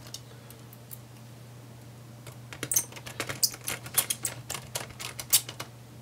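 Small Phillips screwdriver driving a laptop's fan screws back in: a quick, irregular run of light clicks and ticks from tool and screws, starting about two seconds in and stopping near the end.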